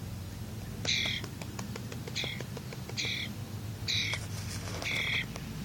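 A young wild bird giving short, harsh squawking calls, five of them about a second apart.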